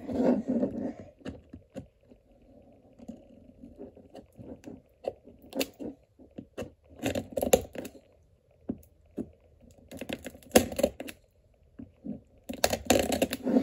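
Scissors snipping and scraping at a plastic toy capsule and its wrapping, with irregular clicks and crinkling as the plastic container is handled.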